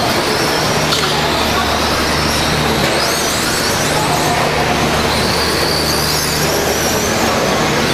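Several radio-controlled electric stock-class stadium trucks racing on a dirt track: their motors whine, sliding up and down in pitch as they speed up and slow for corners, over a steady rush of noise and a low hum.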